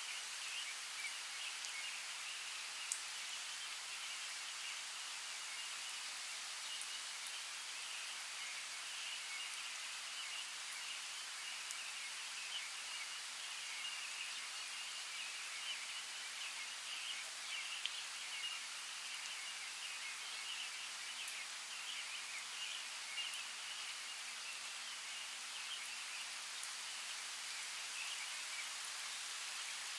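Forest ambience: a steady, even hiss like light rain, with a continuous chatter of high-pitched bird chirps and scattered faint ticks.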